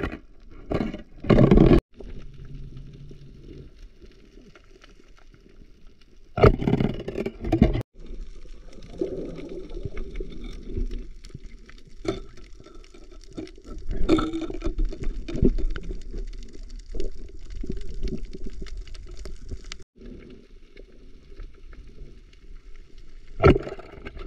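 Diver's breathing heard underwater: loud rushes of breath and bubbles at intervals of several seconds, with a lower steady water noise in between.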